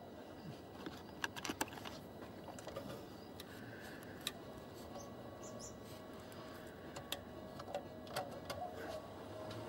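Scattered light clicks and knocks from a hand handling gear right at the microphone, over a faint steady background hum.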